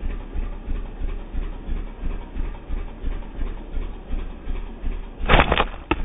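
Steady low thudding about two to three times a second, then near the end a sharp loud snap of a slingshot being shot, followed by a short click.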